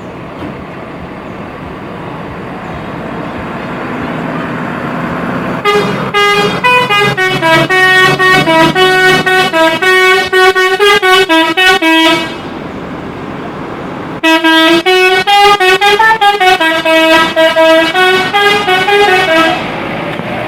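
Bus 'telolet' horn, a set of electric multi-tone air horns, playing a tune in quick pulsed notes. It plays two phrases, about six and five seconds long, with a short break between them. Before the horn starts, road and engine noise grows steadily louder.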